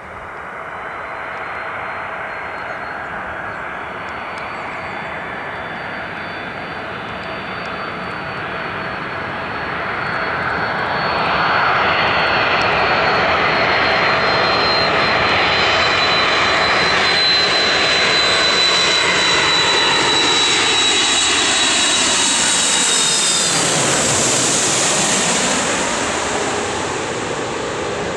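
Boeing 747 jet engines on a landing approach: the jet noise builds for about ten seconds, holds loud with a high fan whine, then the pitch slides down as the aircraft passes and the sound fades near the end.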